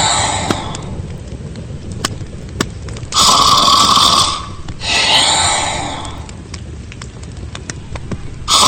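Cartoon snoring sound effect: two loud snores on the in-breath, each followed by a long breathy out-breath, repeating about every five seconds.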